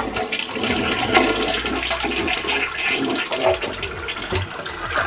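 A toilet flushing: water starts rushing suddenly and swirls steadily down the bowl.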